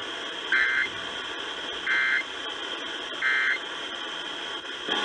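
Emergency Alert System end-of-message signal: three short, harsh digital data bursts about 1.4 seconds apart over steady radio hiss, marking the end of a National Weather Service flash flood warning.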